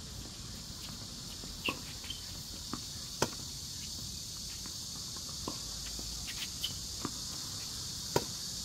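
Tennis ball hit back and forth in a singles rally: sharp pops of racket on ball, the loudest about three seconds in and again near the end, with fainter hits and bounces from the far side of the court in between. A steady high chirring of insects runs underneath.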